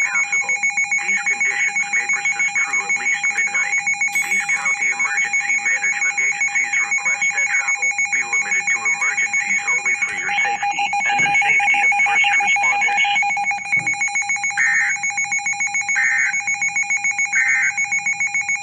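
Electronic alert alarm of a weather radio receiver: a steady two-pitch tone pulsing rapidly and evenly, a little louder for a few seconds past the middle.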